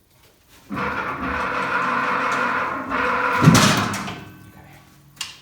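A crane's motor runs steadily for about three seconds while lifting a heavy machine, then a loud clunk rings out and dies away.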